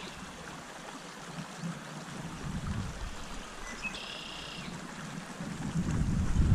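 Trout stream water running steadily. About four seconds in there is a short high-pitched sound, and near the end a low rumble builds up.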